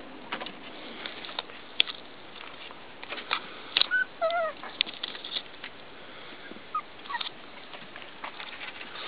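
Four-week-old puppies scuffling about on loose gravel, with scattered light crunches and clicks. About four seconds in, a puppy gives a short wavering whimper, and near the end there are a couple of faint, short squeaks.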